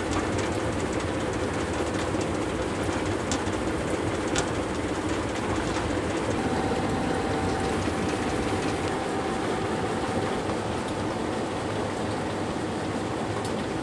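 Electric dough mixer running, its paddles churning crumbly noodle dough in a flour-dusted steel trough: a steady mechanical rumble with faint ticks. A thin, faint whine is heard for a few seconds in the middle.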